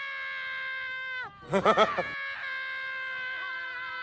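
Human screaming for joy, held in long high notes at a steady pitch, with a short burst of yelling about halfway through. It is delight at finding that the campground sink tap runs.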